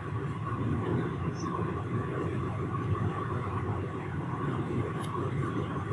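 Steady low background rumble with a faint, steady, high hum above it, and one short click about five seconds in.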